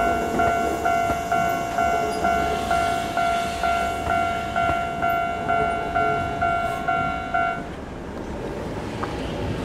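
Japanese railway level-crossing warning bell ringing in a steady repeating ding, about two strokes a second, over a low rumble, then cutting off abruptly about three quarters of the way through: the crossing clearing after the train has passed.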